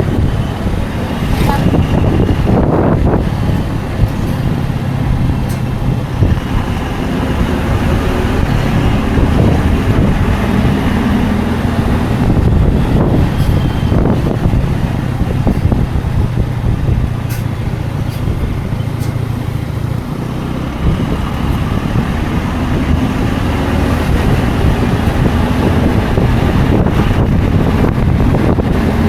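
Scooter engine running steadily under way, heard from the rider's seat, with road and traffic noise around it.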